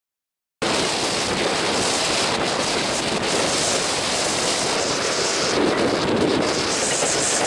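Strong, gusty wind blowing across the camera microphone: a loud, even rush of wind noise that cuts in suddenly just under a second in and holds steady.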